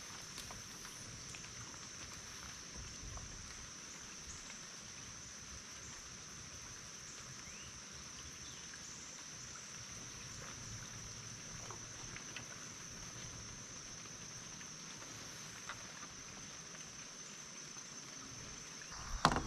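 A steady, high-pitched chorus of insects in the creekside vegetation, unbroken throughout, over a faint low rumble.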